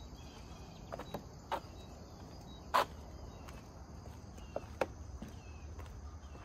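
Footsteps of a walker crossing a wooden footbridge: a handful of irregular knocks, the loudest about three seconds in. A faint steady high trill of insects runs underneath.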